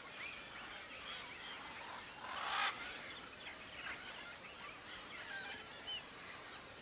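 Many birds singing and calling at once, a busy chorus of short chirps and whistles, over a faint steady high tone. About two and a half seconds in comes one louder, brief noisy burst.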